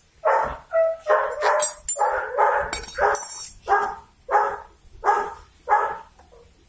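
A dog barking repeatedly, about eleven loud barks in quick succession that stop shortly before the end.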